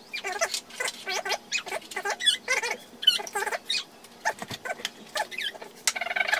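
A small animal chirping and squeaking in quick runs of short calls that slide up and down in pitch, with a faint steady hum underneath.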